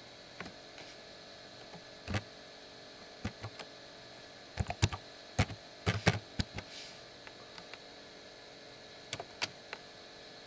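Computer keyboard keystrokes and mouse clicks as a search term is typed: a few scattered clicks, a quick run of keystrokes about halfway through, and a couple more clicks near the end, over a faint steady hum.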